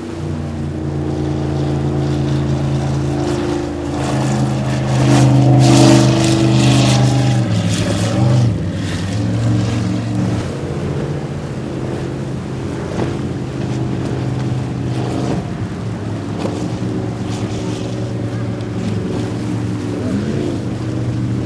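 Speedboat engines running hard as the boats cross rough inlet waves, with the rushing splash of hull and spray. The engine note dips about eight seconds in, then comes back up, and rises again near the end.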